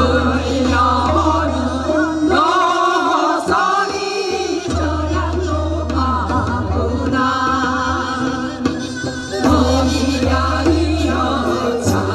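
Women singing a Korean folk song (minyo) into microphones, voices wavering with vibrato over instrumental accompaniment with a steady bass line. The bass drops out for a moment about three seconds in.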